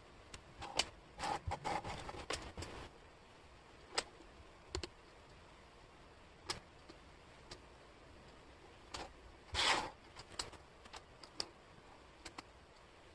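Wooden jigsaw puzzle pieces clicking and sliding on a tabletop as hands sort and fit them: scattered light clicks with short clattering flurries, the busiest about a second in and again near ten seconds.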